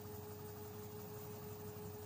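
LG front-loading washing machine running mid-cycle: a faint, steady low hum with a constant thin whine over it.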